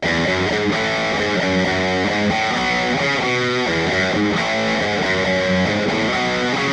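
Electric guitar played through a VOX combo amplifier, strummed chords coming in suddenly at the start and running in a steady rhythm.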